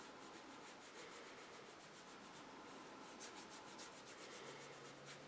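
Faint rubbing of a small watercolour brush stroked over textured paper, with a quick run of short scratchy strokes about three seconds in.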